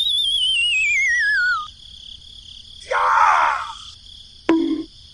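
A warbling whistle tone slides steadily down in pitch for about a second and a half. It is followed about three seconds in by a brief harsh burst and, near the end, a short pop, over a steady chirring of crickets.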